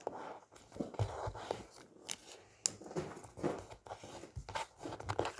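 Sheet of coloured origami paper rustling and crinkling as it is folded and creased by hand against a desk, in a string of short scrapes.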